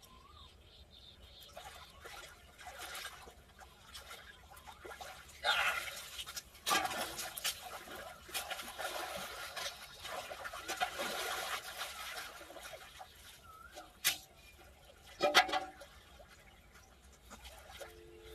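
Shallow muddy pond water splashing and sloshing as a person wades and works a hook line and catch by hand, in uneven bursts through the middle. Two sharp knocks stand out about three-quarters of the way in.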